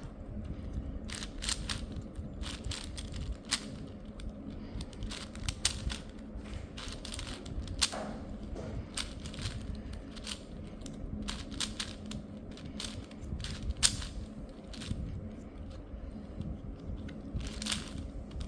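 Plastic 4x4 speed cube being turned by hand: irregular clicks and clacks of its layers, with a low steady hum underneath.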